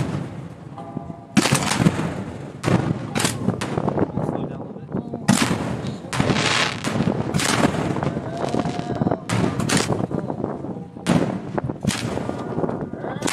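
Aerial fireworks fired at close range from a barge: mortars launching shells and shells bursting in an uneven, rapid series of sharp booms, about one to two a second, each with a ringing tail. The loudest boom comes about a second and a half in. Wind noise on the microphone.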